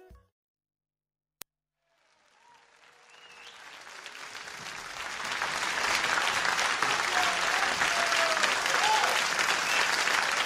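Crowd applause fading in over about four seconds after a short silence, then holding steady. A single click comes before it.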